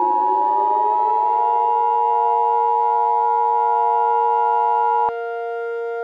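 Emergency Alert System attention signal, a steady two-note alarm tone, layered with siren-like tones that glide upward and then hold as a dissonant chord. About five seconds in the attention tone cuts off with a click, and the remaining tones carry on more quietly.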